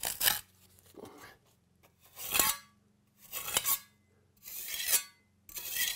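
Steel pointing trowel scraping along fresh sand-and-cement mortar joints between engineering bricks, striking weather-struck pointing: about six short scrapes, roughly one a second.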